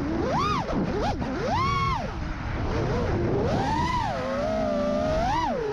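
FPV freestyle quadcopter's brushless motors whining, the pitch swooping up and down several times as the throttle is punched and chopped, over a rush of wind and prop wash.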